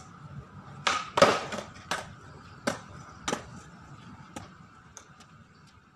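Skateboard tricked on a hard court during a varial kickflip attempt: a cluster of wooden clacks about a second in, the loudest just after, as the board is popped and slaps down. Several single sharp clacks follow, spaced about a second apart, fading toward the end.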